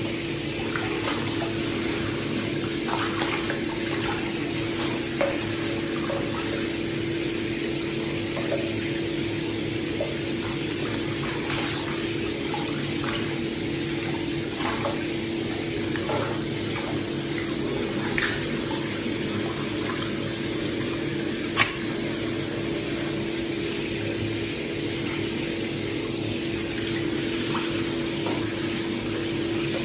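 Bathwater splashing and lapping as an Asian small-clawed otter swims and plays in a tub, over a steady low hum, with a few short sharp splashes or knocks, the loudest about two-thirds of the way through.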